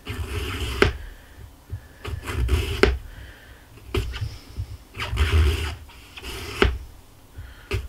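Sharpened knife slicing thin rounds off an apple: about five separate cutting strokes, each ending in a sharp tap as the blade comes through onto the cutting mat.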